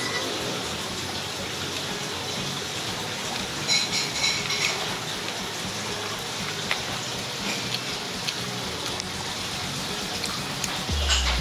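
Steady rushing noise with a few light clinks about four seconds in, and a low thump near the end.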